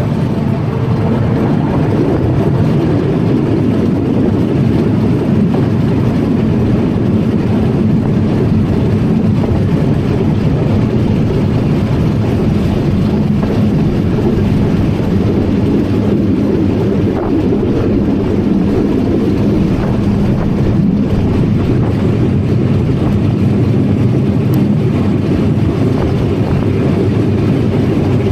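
Atterseebahn metre-gauge electric train under way, a loud, steady running noise. A low steady hum runs through it from about two seconds in until about twenty seconds.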